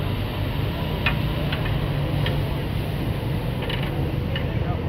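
Metal spatulas clinking and scraping against a large steel tawa: about half a dozen sharp clicks, spaced irregularly, over a steady background din with a low hum.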